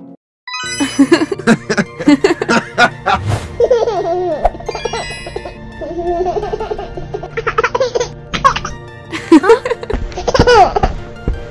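A baby giggling and laughing in repeated bouts over cheerful background music. The sound cuts in after about half a second of silence.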